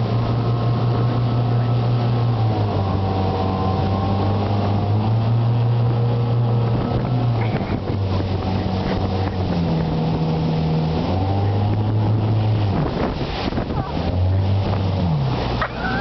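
Motorboat engine running at speed while towing a tube, its pitch dropping and rising a few times in the second half, over the rushing water of the wake.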